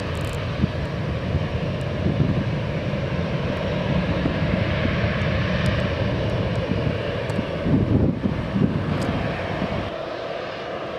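Boeing 787-8 Dreamliner's Rolls-Royce Trent 1000 jet engines running as the airliner lines up on the runway: a steady rumble and hiss that eases off slightly about ten seconds in.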